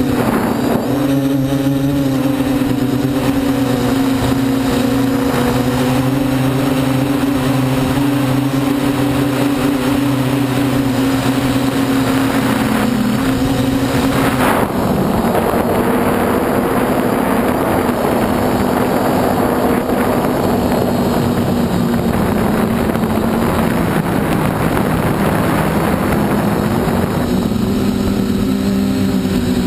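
F450 quadcopter's four motors and propellers buzzing steadily, heard up close from the camera on the craft. About halfway through the buzz drops in pitch and turns rougher and noisier, and near the end the steady pitched buzz comes back.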